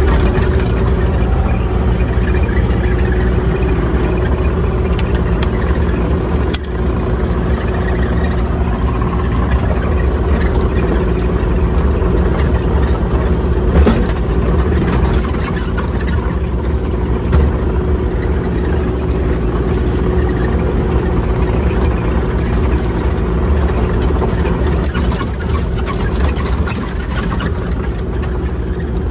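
Excavator's diesel engine running steadily: a loud, even low drone with one constant tone above it and a few scattered clicks and rattles.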